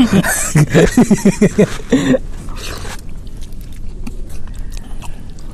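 A man's voice in short quick bursts for about the first two seconds, then soft wet clicks and squishes of rice and mutton curry being mixed by hand and chewed.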